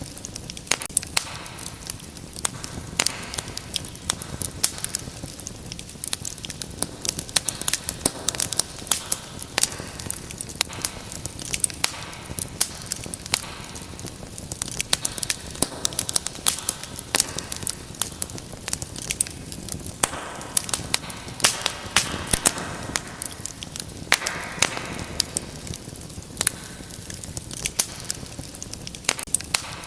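Wood fire burning in a fireplace, crackling with many sharp pops and snaps throughout over a soft, steady rush of flame.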